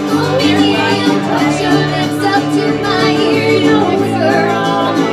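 Live country band playing: a woman singing lead over strummed and plucked guitars, among them a resonator guitar.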